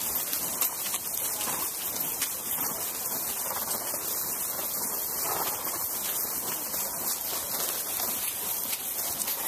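Steady hissing noise, with a few faint wavering cries now and then.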